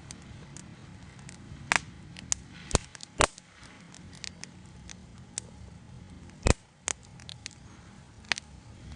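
Wood fire crackling, with irregular sharp pops over a low steady background and a handful of louder snaps scattered through.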